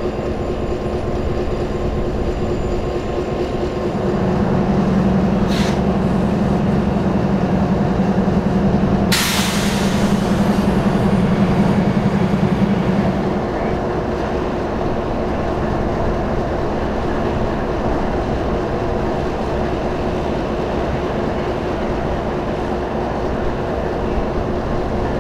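BNSF diesel-electric locomotives running with a steady engine hum. From about four seconds in the engines get louder and deeper for roughly nine seconds before settling back. A short, sharp hiss comes about nine seconds in.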